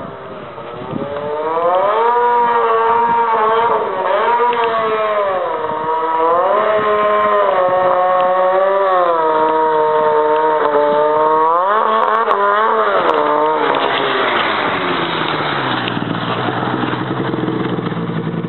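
Snowmobile engine revving up and down in long, repeated swells as it sidehills across a slope at a distance. About three-quarters of the way through it cuts to a nearby Polaris RMK snowmobile's engine running steady and low, with a hiss over it.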